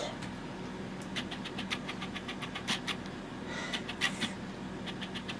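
Hands squishing and squeezing cornstarch-and-water slime (oobleck): a run of quick, irregular wet clicks and smacks.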